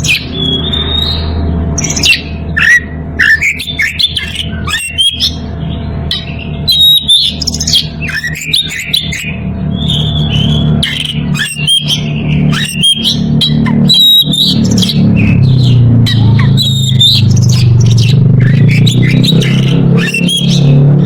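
Oriental magpie-robin, a male in breeding condition, singing varied loud phrases of whistles, sharp chirps and harsh squawky notes, calling out to a rival. Low background music runs underneath and grows louder in the second half.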